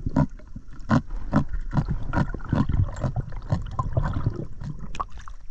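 Muffled underwater noise from a spearfisher swimming with a camera in a waterproof housing: water moving past the housing, with repeated short knocks about two or three times a second.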